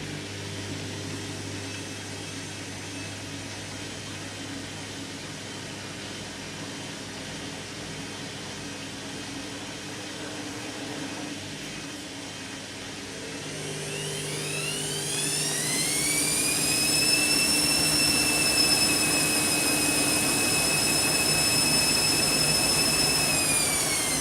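Candy washing machine in its final spin: a steady low hum of the turning drum, then about 13 seconds in the motor's whine climbs steeply as the drum spins up to high speed, holds steady and louder, and starts to drop just at the end.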